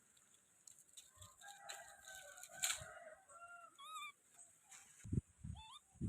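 Faint animal calls: a longer call about two seconds in, then several short squeaky chirps, with a few low thumps near the end.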